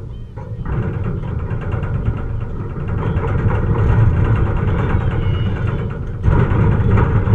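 Wind buffeting the camera microphone: a loud, uneven low rumble that surges again about six seconds in.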